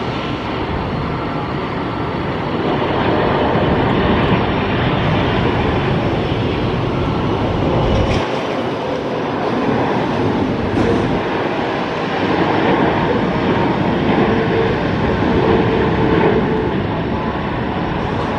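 Boeing 777-300ER jet airliner on final approach, its engines giving a steady, loud rumble and roar. The deep rumble drops away briefly about eight seconds in.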